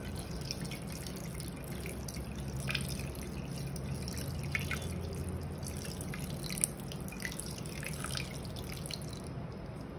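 Cold water poured in a thin stream onto fresh paneer curds in a fine steel mesh strainer, splashing and dripping through into a steel bowl below. The water is rinsing the lemon taste out of the freshly curdled paneer.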